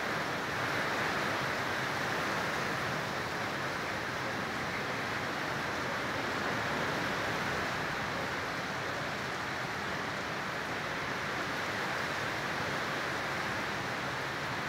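Strong storm wind and rain making a steady rushing noise, with no gusts or bangs standing out.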